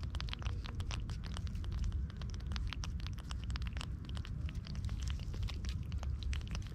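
Continuous crackling of many small, irregular clicks and pops from the wet mangrove mudflat, over a steady low rumble.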